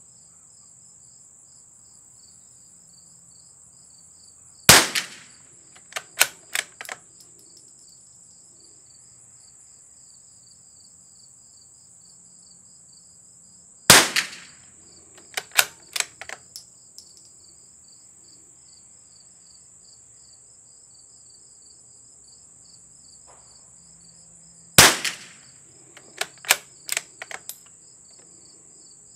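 Three shots from a CZ .22 LR bolt-action rifle, about ten seconds apart. Each shot is followed within a couple of seconds by a quick run of metallic clicks as the bolt is worked to eject the case and chamber the next round. Crickets trill steadily throughout.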